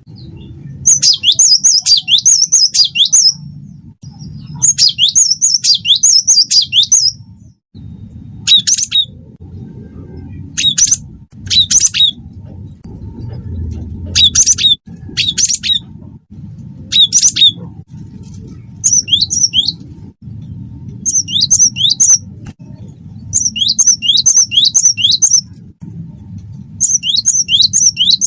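Gelatik batu wingko (cinereous tit) singing loud bursts of quick, sharp, high notes that each sweep downward, in runs of several notes repeated every few seconds, over a steady low hum.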